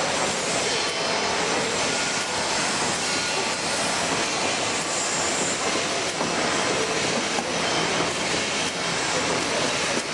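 Octans-126T thermal laminator running steadily, its rollers and sheet feeder carrying printed sheets through for OPP film lamination.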